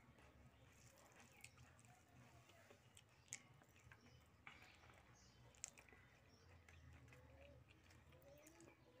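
Near silence: faint chewing and the soft sounds of fingers mixing rice and curry on a plate, with a few small clicks.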